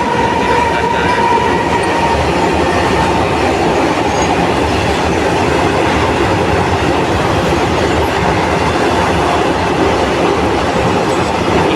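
Train wheels running on the rails: a loud, steady rumble and rattle of a moving train. A faint high squeal fades out in the first couple of seconds.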